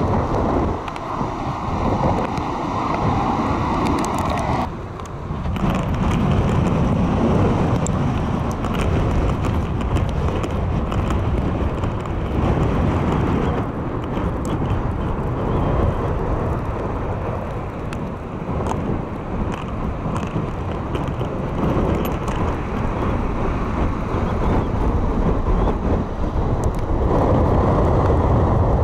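Storm wind buffeting the microphone over breaking ocean surf, a loud, steady rumbling roar. The sound dips and shifts abruptly about five seconds in.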